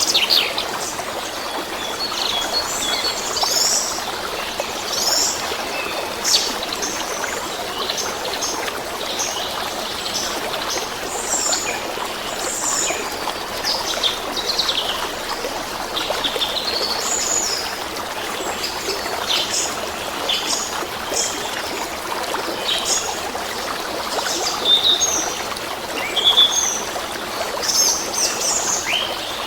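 A steady rush of running water with birds chirping over it in many short, scattered calls.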